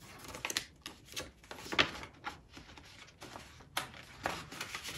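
Paper rustling as an envelope and the papers inside it are handled: an irregular run of short crinkles and scrapes.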